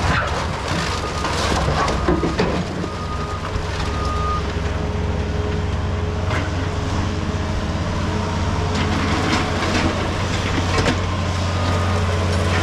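Heavy diesel machine running steadily, with irregular crunching and cracking of broken concrete debris being handled.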